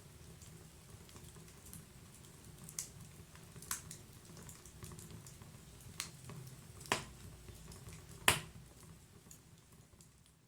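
Wood fire burning in a fireplace: a low steady rumble of flames with sharp crackles and pops from the burning wood, a handful of louder pops, the loudest about eight seconds in. The fire sound fades down near the end.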